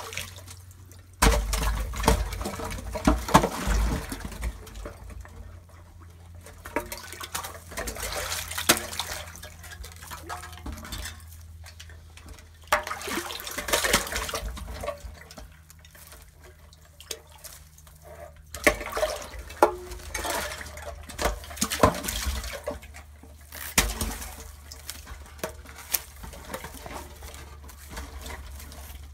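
Neodymium fishing magnet on a rope splashing and sloshing through the water at the bottom of a narrow well, in irregular bouts a few seconds apart.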